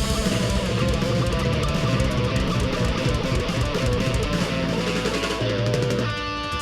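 Live rock band playing an instrumental passage with strummed electric guitar, bass and drums. About six seconds in the dense playing drops away to held, ringing tones with a lighter beat.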